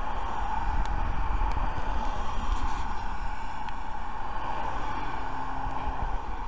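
Road traffic passing along a street: a steady rush of cars driving by, with a low rumble of wind on the microphone, recorded through a budget action camera's built-in microphone.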